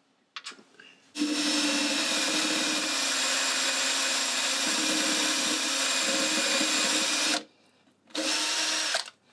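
Cordless drill drilling into the cast-iron lathe bed: one long steady run of about six seconds, a pause, then a short second run near the end.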